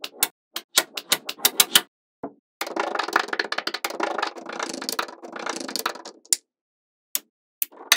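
Small magnetic balls clicking as they snap onto and off a block of balls: a quick run of sharp clicks, then about two and a half seconds in a dense rattle as a sheet of balls is peeled away and pressed back. A few lone clicks follow near the end.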